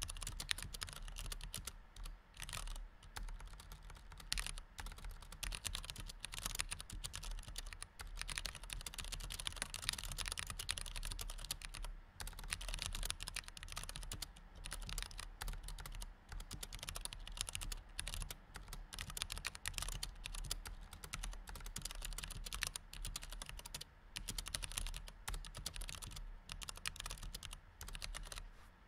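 Continuous fast typing on a low-profile white chiclet computer keyboard: a dense stream of key clicks, broken by a few brief pauses.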